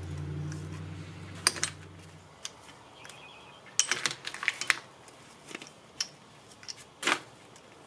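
Chrome pushrod tubes clinking and knocking as they are handled and set down on a workbench among other metal parts: a scatter of light, sharp metal clicks. A low hum stops about two seconds in.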